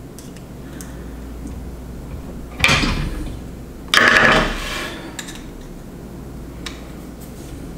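Light metal clicks and scrapes of a small screwdriver working a tiny screw in a Soto Windmaster stove's igniter mount, a screw seized by corrosion whose head is stripping. Two louder brief rustling noises come about three and four seconds in, the second the loudest.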